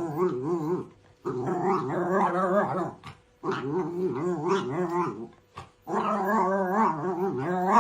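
A dog growling in four long growls with short breaks between them, the pitch of each wavering up and down.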